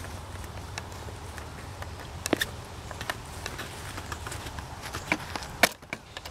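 Fingers rubbing and tapping on a camera over its microphone: a steady low rumble with scattered clicks and knocks, two sharper ones about two and a half seconds in and near the end.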